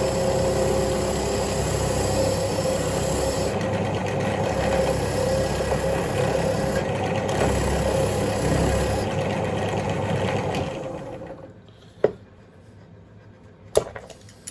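Electric power tool running steadily with a gritty hiss while rust is cleaned off a bolt, then shutting off about eleven seconds in, followed by two sharp metal knocks.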